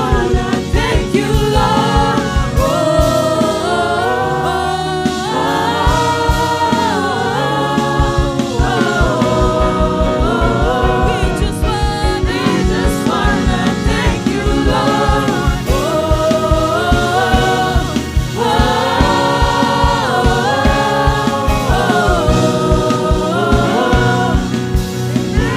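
Gospel worship choir singing in harmony over a backing band with a steady beat.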